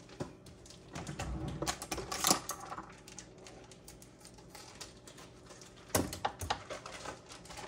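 Scattered light clicks and knocks of kitchen items being handled: a cluster in the first two seconds, then a few more about six seconds in.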